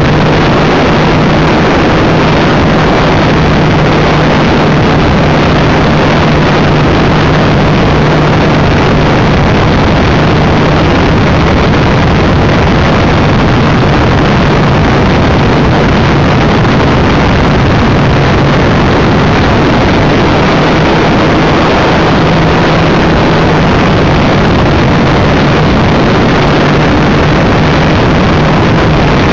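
Multiplex EasyGlider RC motor glider's electric motor and propeller running under power, heard from a camera on the airframe. A loud, steady drone mixed with rushing air, the hum wavering slightly in pitch.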